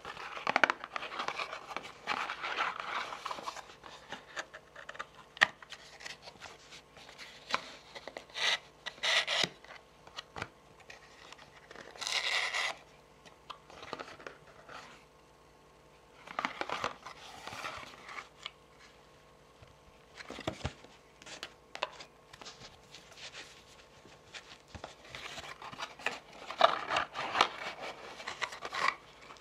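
Fingernails tapping and scratching on a cardboard tarot card box and its inner tray, the cardboard rubbing and sliding as it is handled. Many sharp clicks, with a few longer rustling strokes in between.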